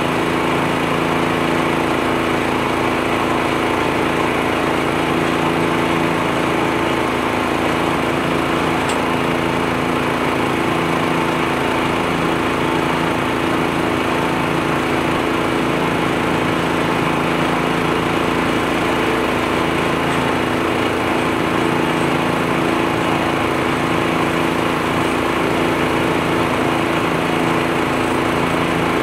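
U-Mount leaf blower on a John Deere 1025R compact tractor, running steadily at a constant speed: an even engine drone under a broad rush of blown air.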